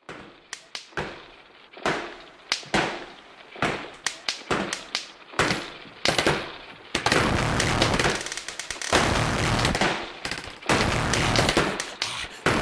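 Sharp bangs like gunfire, coming at irregular intervals, each with a short ringing tail, as a song's intro opens. About seven seconds in, a dense, distorted wash with a pulsing low beat sets in beneath and between the bangs.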